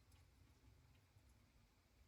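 Near silence with a faint low hum: the washing machine's drum at rest in a pause between turns of the wash cycle.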